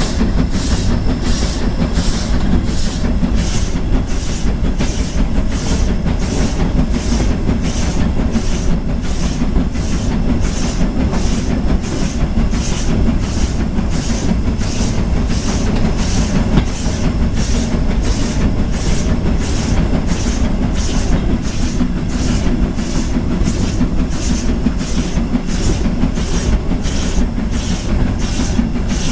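Austerity 0-6-0 saddle tank steam locomotive working along at slow speed, its exhaust beating evenly about three times every two seconds. Underneath is a steady rumble from the wheels of the train on the track.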